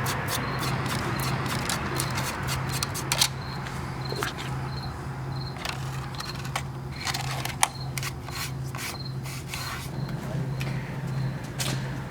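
Irregular sharp clicks and knocks, several a second at times, over a steady low hum.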